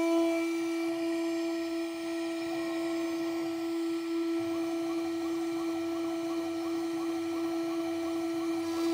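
CNC router spindle spinning an end mill at 20,000 rpm while milling a pocket in POM (acetal) plastic: a steady high whine at one pitch with overtones above it.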